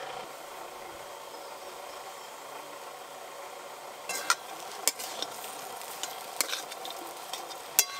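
Potato filling frying gently in an aluminium kadai, a soft steady sizzle. From about four seconds in, a flat metal spatula stirs it, scraping and knocking against the pan in a few sharp clicks, the loudest near the end.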